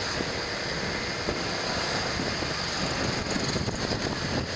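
Steady wind and road noise from a moving scooter, heard from the rider's seat.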